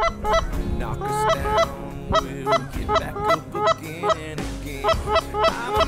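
Goose honking: a rapid run of short two-note honks that break upward in pitch, about three or four a second, pausing briefly near the end. It is the cadence of geese calling to a flock, of the kind heard over decoys.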